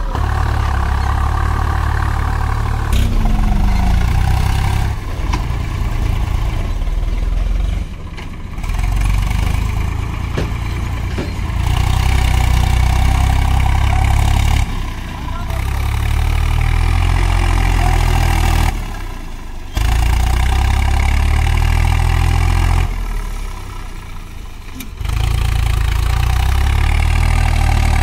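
Diesel tractor engine running loudly and steadily, the sound changing abruptly several times where one stretch of footage cuts to the next.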